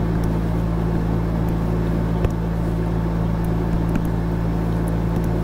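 Steady low hum made of several held low tones, with a few faint clicks, one slightly louder about two seconds in.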